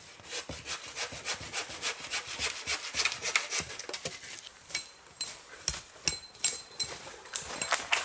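Hand saw cutting through a dry wooden pole in quick back-and-forth strokes, about five or six a second, slowing to about three a second in the second half.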